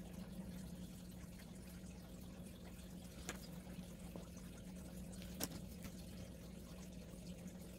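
Faint steady low background hum, with two light clicks, the first about three seconds in and the second about two seconds later.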